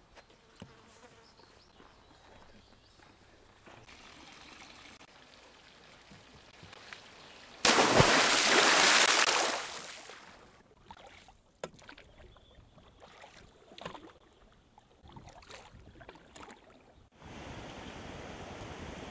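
Quiet outdoor ambience, broken about eight seconds in by a loud rush of splashing water that lasts about two seconds and fades, then a steady rush of flowing stream water near the end.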